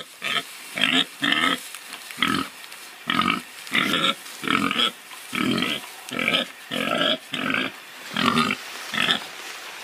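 Domestic pig grunting, about fourteen short grunts in an irregular run, roughly one and a half a second.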